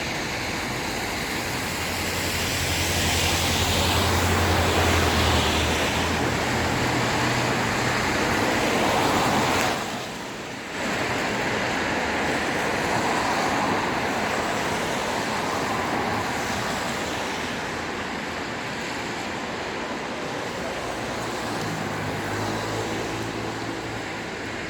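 Road traffic: a steady wash of passing vehicles, with louder passes a few seconds in and again near the end carrying a low engine hum, and a brief lull about ten seconds in.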